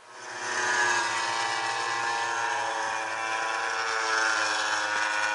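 Racing motorcycle engines running at high revs on the circuit, swelling up within the first second and then holding loud and steady.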